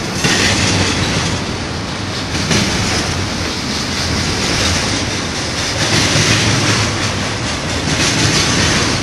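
Double-stack intermodal train's loaded well cars rolling past close by, steel wheels on the rails giving a steady loud rumble with wheel clicks over the joints.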